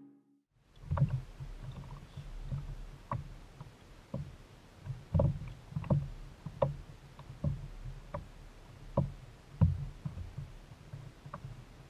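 Hollow knocks and slaps on a plastic sit-on-top fishing kayak's hull, irregular and about one or two a second, from small water movement and an angler's weight shifting on the deck. They begin after a moment of silence.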